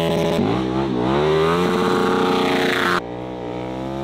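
KTM 1290 Super Duke R's V-twin engine revving up and down hard as the bike drifts sideways with its rear wheel spinning. About three seconds in the sound drops abruptly in level, and the revs keep rising and falling.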